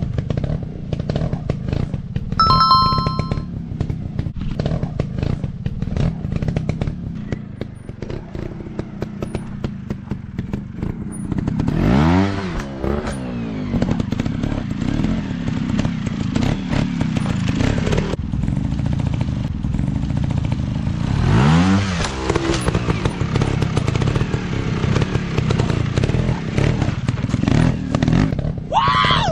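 Dirt bike engine running, revving up about twelve seconds in, again about twenty-one seconds in, and once more near the end. A brief high beep sounds about two and a half seconds in.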